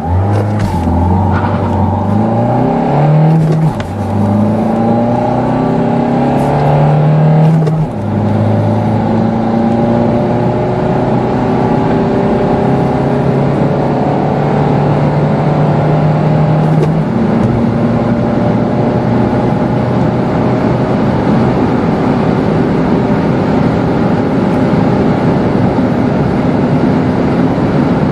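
Renault Clio 4's 1.5 dCi four-cylinder turbodiesel under hard acceleration, heard from inside the cabin. Its note climbs steadily through each gear and drops at three upshifts, about 3½, 8 and 17 seconds in. Wind and road noise build as the speed rises.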